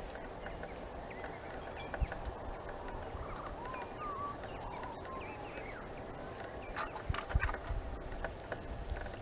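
Outdoor ambience with a few short chirping bird calls about three to four seconds in, then a quick cluster of knocks about seven seconds in.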